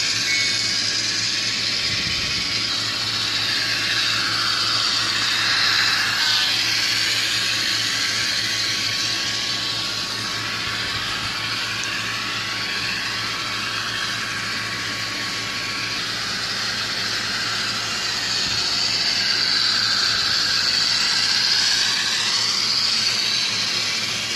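Athearn Genesis GP38-2 model diesel locomotive running on track, its onboard DCC sound decoder playing a steady, hissy diesel engine sound through its small speaker, with slowly shifting tone.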